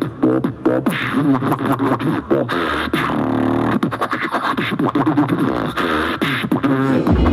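Beatboxing into a handheld microphone: a fast run of mouth-made drum clicks and snare hits mixed with hummed tones that slide up and down in pitch.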